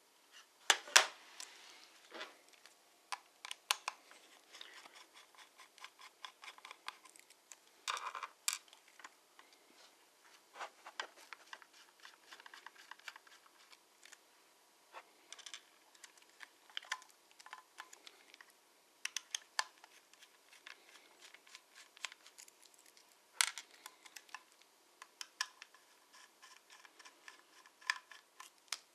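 Irregular small clicks, taps and scrapes of hands handling laptop parts, screws and a drive during a hard-drive-to-SSD swap.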